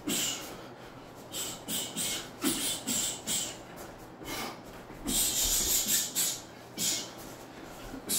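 Sharp, hissing exhales through the mouth and nose timed with punches while shadowboxing with light hand weights: a dozen or so short breaths in quick runs, with a denser flurry about five to six seconds in.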